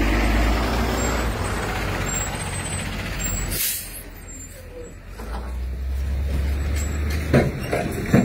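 Box truck's engine running close by, with a short sharp hiss about three and a half seconds in. The engine drops back, then rumbles again, and a couple of sharp knocks come near the end.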